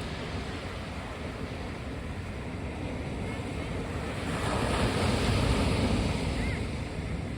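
Surf washing on a beach, with wind buffeting the microphone; a wave swells louder a little past halfway and then fades back.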